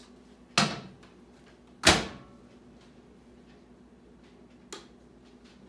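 A microwave oven being loaded and shut: a knock, then the door slamming closed with a sharp clunk, the loudest sound. A single light click from the keypad follows near the end.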